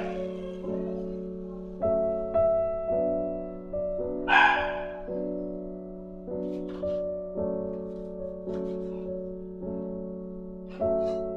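Background piano music: slow chords struck about once a second, each fading before the next. A brief noisy clatter about four seconds in is the loudest sound, with a few fainter clicks later on.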